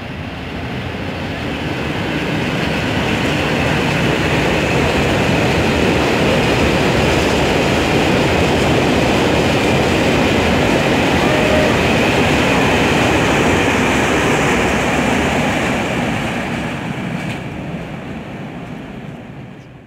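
Freight train of open box wagons behind an electric locomotive rolling past, a steady rumble of steel wheels on the rails. It builds over the first couple of seconds and fades away near the end as the last wagon passes.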